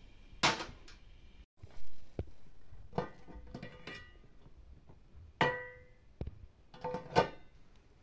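Kitchenware clinking and knocking: a handful of sharp knocks, several of them ringing briefly.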